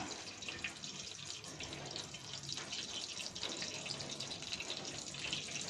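Mustard seeds popping in hot oil in an aluminium pot: a steady crackle of many small, quick pops.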